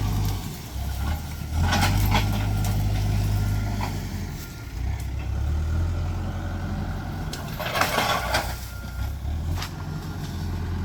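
Heavy land-clearing machine's diesel engine running, its drone rising and falling with the load. Two short bursts of crackling about two and eight seconds in.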